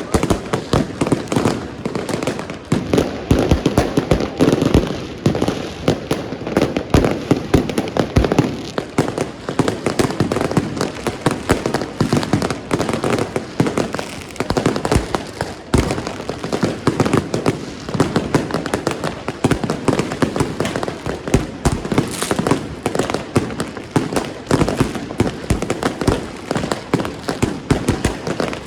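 Many fireworks and firecrackers going off at once: a dense, continuous barrage of overlapping bangs and cracks with no pause.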